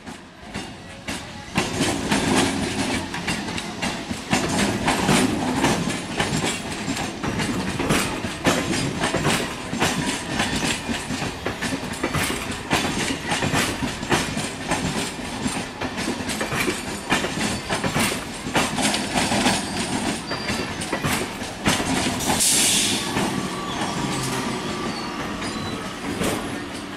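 Electric multiple unit suburban train passing close at speed: a continuous clatter of wheels over rail joints that swells within the first two seconds as the train arrives, with a brief high hiss near the end.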